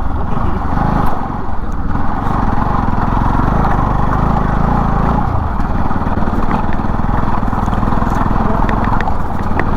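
Bajaj Pulsar NS200 single-cylinder motorcycle engine running steadily while riding a rough, stony off-road track, with a few short clattering knocks near the end.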